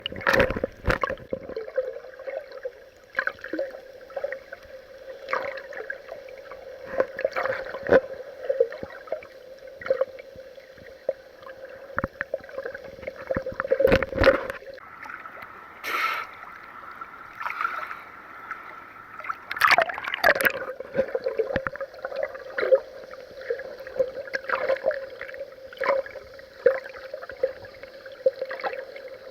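Water sloshing and splashing against a camera's waterproof housing at the surface, heard muffled, with many irregular splashes over a steady hum.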